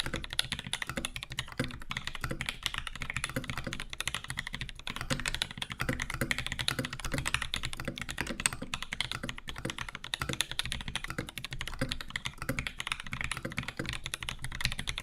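Steady, fast typing on a custom 60% mechanical keyboard in a walnut case: lubed retooled Cherry MX Black linear switches with Zealio bottom housings and 63.5 g springs, under GMK 9009 keycaps. Dense, unbroken key strokes, each a sharp clack.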